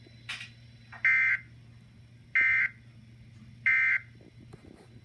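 Emergency Alert System end-of-message signal: three short bursts of two-tone SAME digital data, each about a third of a second long and spaced a little over a second apart, marking the end of the warning.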